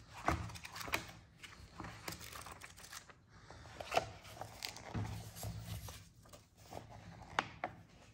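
Paper catalogue pages being handled and turned: irregular rustling and crinkling with sharp crackles.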